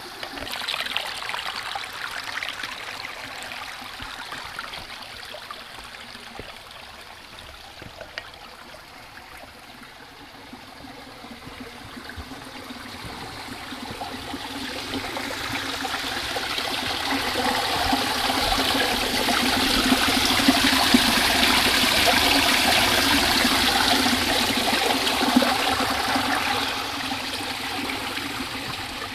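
A stream running, a steady wash of water noise that swells to its loudest about two-thirds of the way in and eases off near the end.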